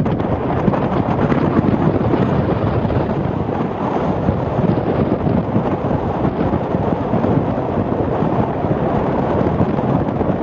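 Wind buffeting the microphone: a loud, steady rushing noise with no distinct events.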